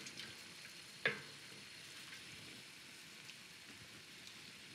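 Faint, steady sizzle of a wine and broth pan sauce simmering and reducing on the stove, with one sharp clink of a utensil on the metal pot about a second in.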